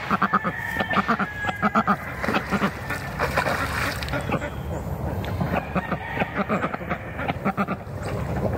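Pekin ducks quacking in quick runs of short, repeated quacks, busiest near the start and again near the end.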